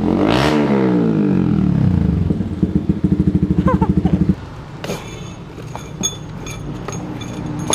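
Yamaha R15's single-cylinder engine breathing through an Akrapovic slip-on and resonator elbow with no silencer: one quick blip of the throttle near the start, then pulsing idle until the engine cuts off about four seconds in. Light clinks and clicks follow.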